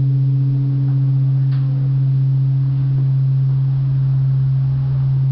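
Large bronze Japanese temple bell (bonshō) humming on after a strike: one deep, steady tone with a slow wavering pulse, while its higher overtones die away.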